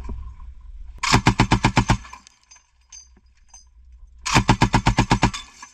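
DShK 12.7 mm heavy machine gun firing two short bursts of about ten rounds each, a few seconds apart, at a rate of about ten shots a second.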